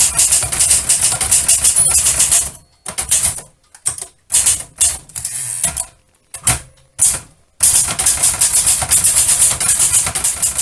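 Typewriter typing in a fast, even run of key strikes, broken in the middle by a few seconds of scattered clacks and short pauses before the fast typing starts again.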